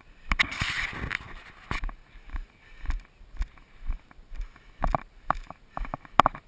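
Footfalls of a runner jogging downhill on a grassy dirt trail, recorded from a body-worn action camera: even thuds about twice a second. A short rush of noise comes about half a second in.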